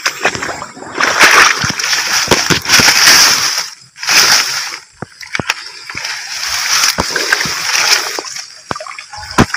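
Shallow swamp water splashing and sloshing in noisy bursts, with a few sharp clicks, as a PVC-pipe eel trap is handled and pulled out of the water among the grass.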